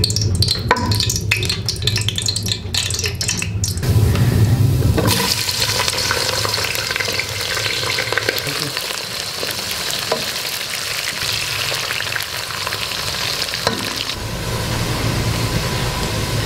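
A wooden spoon knocking and scraping in a metal pot of hot cooking oil, then onions frying. About five seconds in a steady sizzle starts, which eases near the end.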